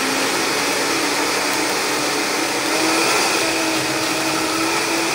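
Countertop blender motor running on a thick green smoothie, its pitch climbing slowly over the first few seconds as the speed is raised from low, then holding steady at high speed.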